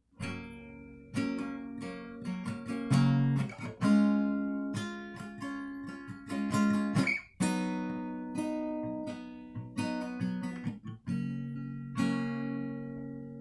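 Acoustic guitar played solo: chords strummed and picked one after another, each ringing on and fading before the next.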